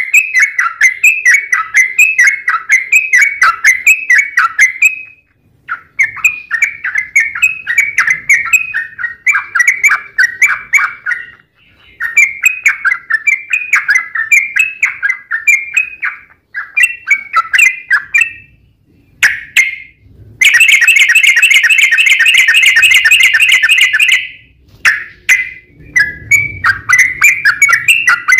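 Yellow-vented bulbul (trucukan) singing long runs of rapid, chattering notes in stretches of several seconds with short breaks between them. About two-thirds of the way in, the song turns into a denser, unbroken rattle for about three seconds before the runs resume.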